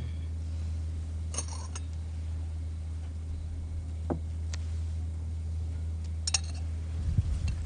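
A knife and cake server clink against china plates a few times as cake is cut and served, over a steady low hum.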